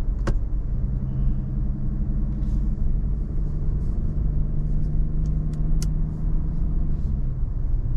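Steady low drone of engine and road noise inside the cabin of a moving Lexus LX500d SUV, with a few faint clicks.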